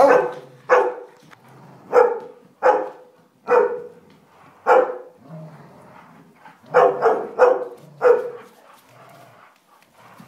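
Bernese mountain dog barking repeatedly in play, about ten loud barks: a run of six over the first five seconds, then a brief lull and four quicker barks in a row.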